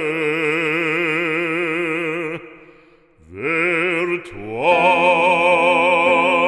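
A singer performing a French hymn, holding long notes with a strong, even vibrato. The first note fades out a little over two seconds in, and about a second later a new note slides up and is held.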